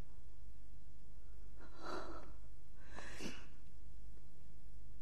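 A woman takes two short, audible breaths, about two and three seconds in, over a low steady hum.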